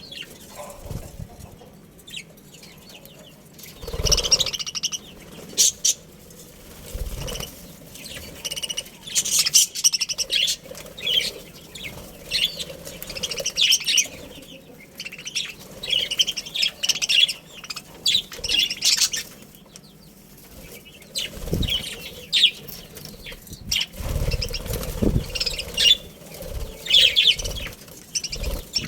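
Budgerigars chirping and chattering in short high bursts that come in clusters with brief lulls, along with a few low thuds and wing flapping.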